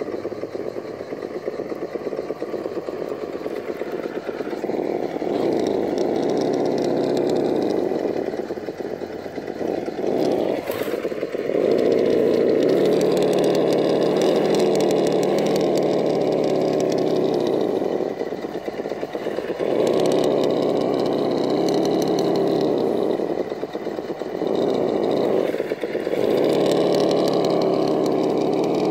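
Vaterra Ascender RC rock crawler's electric motor and geared drivetrain whining in spans of several seconds as it is throttled on and off over rocks, the pitch stepping up and down with the throttle. A sharp knock sounds about eleven seconds in.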